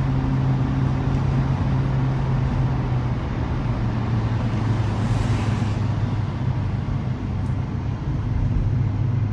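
Car driving at speed on a highway, heard from inside the cabin: a steady engine drone and tyre roar. About five seconds in there is a brief whoosh as an oncoming tanker truck passes.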